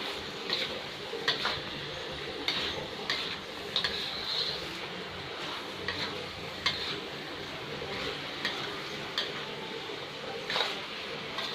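Chicken pieces sizzling in butter in a pot while a spoon stirs them, scraping and knocking against the pot every second or so.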